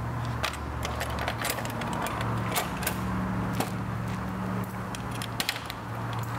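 Scattered light clicks and rattles of a metal license plate frame, rubber mud flap and screws being handled and fitted by hand, over a low steady hum.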